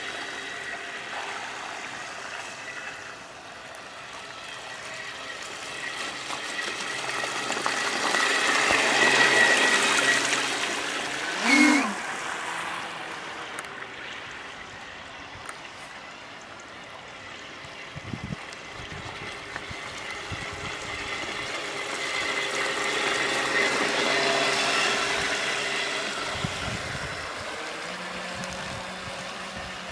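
Radio-controlled model pilot boat running on open water, its motor whining steadily over the rush of its hull and wake. The sound swells twice as the boat passes close and fades as it runs away. A brief loud pitched sound cuts in about twelve seconds in.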